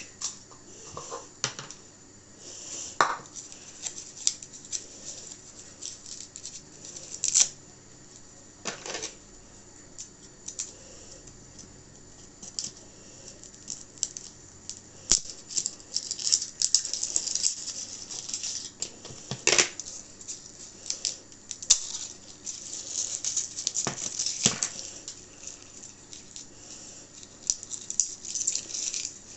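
Kitchen handling sounds: scattered clicks and knocks of utensils and containers, with stretches of rustling. The loudest knock comes about two-thirds of the way through.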